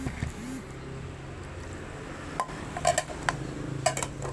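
Kitchenware clinking and tapping against a plastic mixing bowl as jelly cubes are tipped into a fruit salad: a handful of sharp clinks, some in quick clusters, in the second half.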